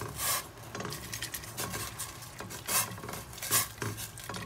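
A spoon stirring noodles in a stainless steel pot of boiling water, scraping and knocking against the pot about four times.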